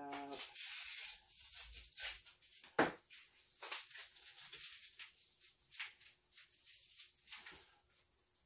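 Crinkling and rustling of packing material with scattered small clicks and knocks as a long shipping tube is handled and worked open, and one sharper knock about three seconds in.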